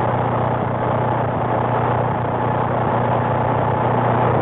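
CB radio receiver giving a steady hiss with a low hum through its speaker, with no voice on it: a station keyed up on an open carrier.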